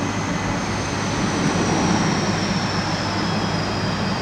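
Boeing 747-400's four turbofan engines at taxi power: a steady jet roar with a high whine that slowly falls in pitch.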